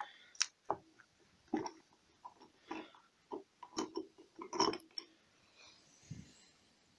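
Irregular metal clinks and knocks of a tractor hydraulic control valve being taken apart by hand, its end cap and spools lifted out for a new seal kit. The knocks are loudest and closest together a little past halfway.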